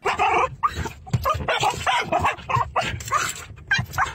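A dog barking, many short barks in quick succession.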